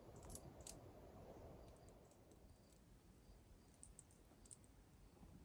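Near silence, with a few faint, sharp clicks scattered through it, some in quick pairs.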